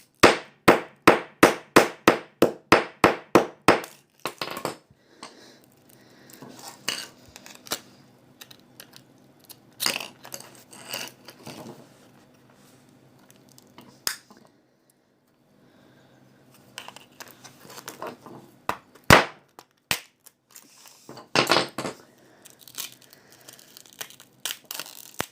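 A quick series of about a dozen sharp knocks, roughly three a second, as a phone part is struck to break it open. These are followed by scattered clicks, crinkles and a single harder knock as the plastic and glass pieces are handled.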